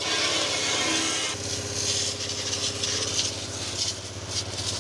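High-pressure washer jet spraying water against a tractor's metal body and chassis. The hiss and spatter are loudest for about the first second and a half, then quieter. Under it runs a steady machine hum, which grows stronger at about that point.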